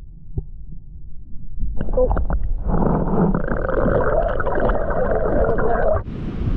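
Water heard through a submerged action-camera housing: a muffled low rumble with a few knocks, growing louder and fuller about two and a half seconds in. Near the end the sound opens out into wind-like open-air hiss as the camera is back above the water.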